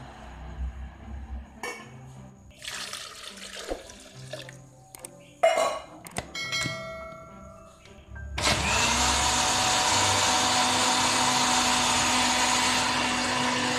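Electric blender grinding grated coconut with water: the motor spins up, rising in pitch, about eight seconds in and runs steadily and loudly to the end. Before it, a few clinks and a short splash of water going into the jar.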